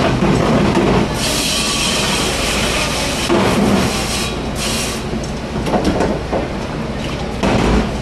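Busy commercial dish room: water spraying with a loud hiss twice, the first for about two seconds, over a constant clatter of dishes and racks.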